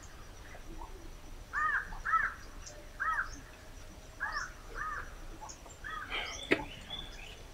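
Crows cawing in short separate calls, about six of them, spaced irregularly. A single sharp click about six and a half seconds in.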